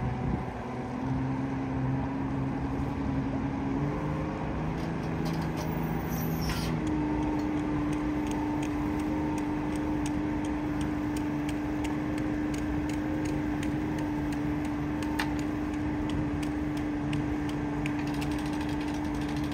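Outboard motor running at low speed as the skiff is powered up onto its trailer. Its pitch steps up twice in the first several seconds and then holds steady, with scattered light clicks over it.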